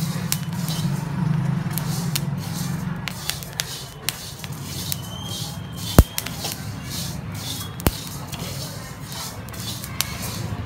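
Flaxseeds dry-roasting in a kadhai, stirred with a wooden spatula: a repeated scraping shuffle of seeds against the pan, with scattered sharp pops as the seeds crackle, two louder ones about six and eight seconds in. The crackling shows the flaxseed has dried out and is nearly roasted crisp. A steady low hum runs underneath.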